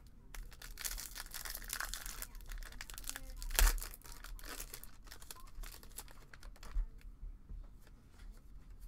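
Silver foil wrapper of a Topps baseball card pack crinkling and tearing open, loudest about three and a half seconds in, followed by sparser light clicks of the cards being handled.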